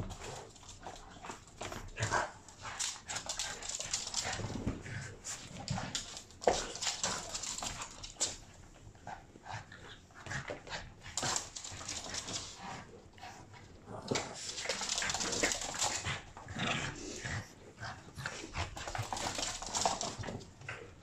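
Boston terrier puppy at play, mouthing and shaking a plush rope toy: a busy run of short scuffling and dog vocal noises, coming in two busier stretches.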